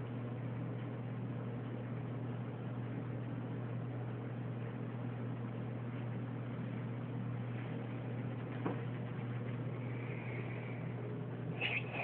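Quiet room tone: a steady low hum and hiss, with a faint click about nine seconds in.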